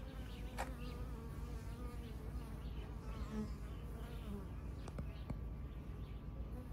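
Honeybees buzzing as they fly in and out of a small hole in a boat's hull that serves as their hive entrance.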